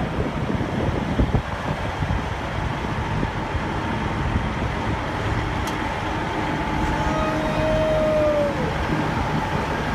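Large diesel engines of Caterpillar earthmoving machines, a wheel loader and a push-pull scraper, running steadily. Near the end a single long tone slides down in pitch over the engine noise.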